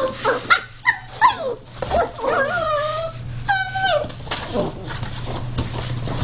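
Border Collie puppies yipping and whining: a string of short high cries, then longer wavering whines about two and three and a half seconds in, and a last falling whine, followed by scuffling.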